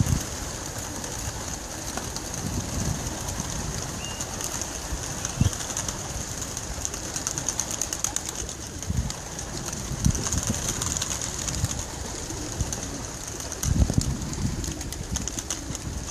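Racing pigeons cooing now and then, with low coos every few seconds over a steady high hiss.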